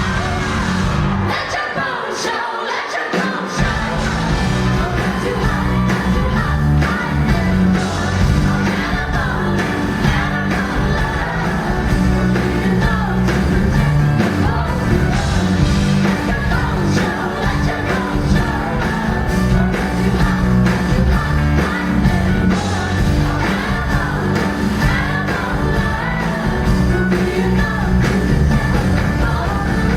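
Live pop-rock band playing with a woman singing. The bass and drums drop out for a moment about a second in, then the full band comes back in.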